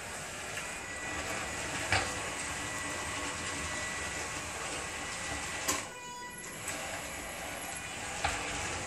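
Homemade robotic wet mop's drive motors running steadily as it rolls across a tile floor, with a faint steady whine. Three sharp clicks break in, and the noise drops briefly about six seconds in.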